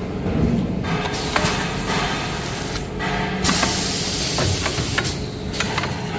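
Toilet-roll bagging machine running: a steady hum with long stretches of loud hiss and scattered sharp clicks.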